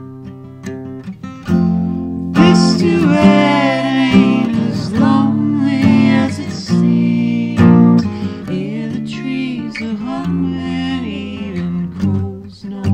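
Acoustic guitar playing a folk song, with singing coming in about two seconds in.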